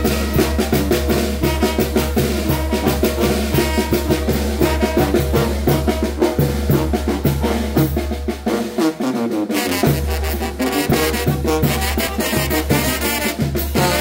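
Traditional Oaxacan brass band playing a Mixtec chilena: brass melody with trombones over a steady drum beat. The low bass line drops out for about a second around the middle, then comes back in.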